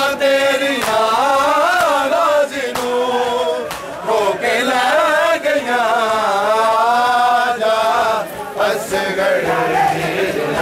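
Male voices reciting a Punjabi noha, a Shia mourning lament, in long wavering melodic lines with short breaks between phrases.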